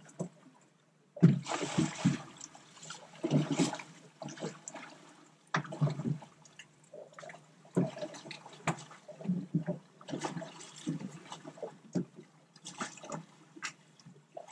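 Water splashing and sloshing in irregular bursts beside a boat's hull, from a hooked amberjack at the surface by the boat.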